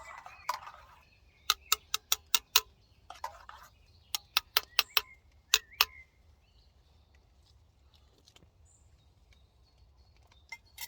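Quick runs of sharp clicks or taps, about four a second, over the first six seconds, then a few faint high bird chirps.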